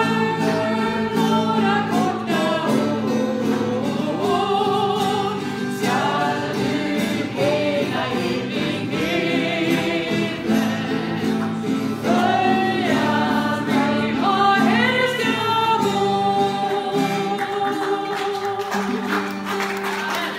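Two women singing a Christian worship song together, accompanied by a strummed acoustic guitar.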